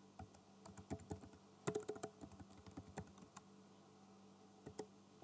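Computer keyboard typing: a quick run of key clicks through the first three and a half seconds, then two more keystrokes near the end.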